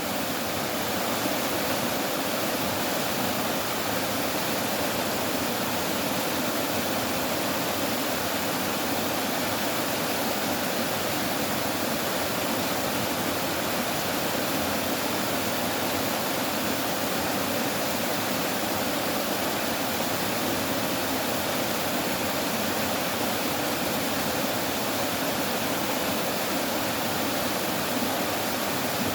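Water rushing steadily, an even unbroken roar of flowing water with no separate splashes or changes.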